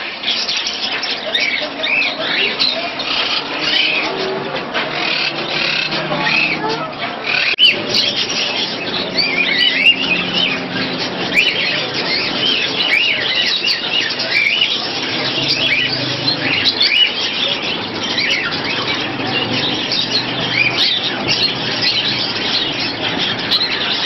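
Many caged budgerigars and lovebirds chirping and chattering at once: a dense, continuous mass of short high chirps.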